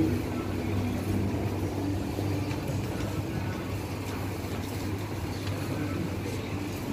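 Shop's background music playing over the store sound system, with a steady low hum beneath it.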